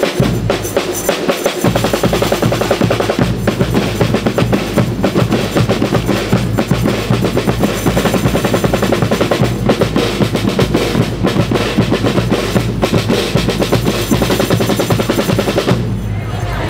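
A school rhythm band's drum section plays a fast, dense cadence on snare drums, bass drums and tom-toms. The drumming stops just before the end.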